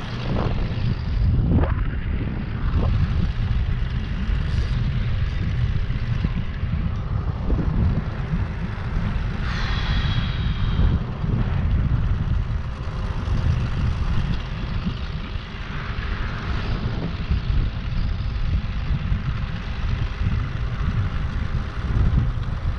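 Wind buffeting the microphone in a steady low rumble, with a brief higher whine about ten seconds in.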